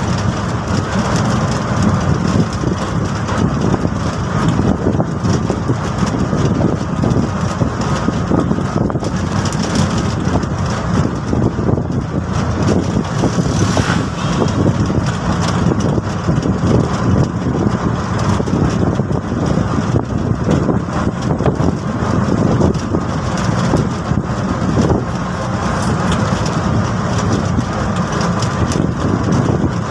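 TVS King Deluxe three-wheeler's engine running steadily under way, heard from inside the open cab along with road noise.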